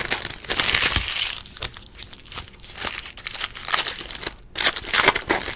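Foil trading-card pack wrappers crinkling and tearing as Luminance football packs are ripped open by hand, in repeated bursts with short pauses.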